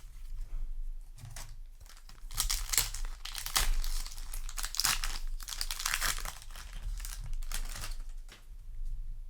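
Foil booster-pack wrapper crinkling and tearing as a Yu-Gi-Oh! pack is ripped open and handled; the crackling is densest in the middle and thins out near the end.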